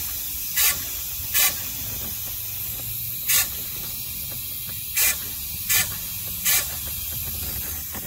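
Short hissing spurts at an irregular pace of about one a second over a steady hiss and low hum: coolant and air escaping through a hairline crack in the plastic end tank of a 2013 Mercedes-Benz GL450 radiator, bubbling out of the crack.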